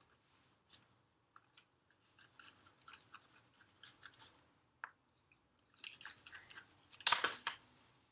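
Scattered light scratches and clicks of slime being handled and scraped around a plate with a small stick, with a louder scrape near the end.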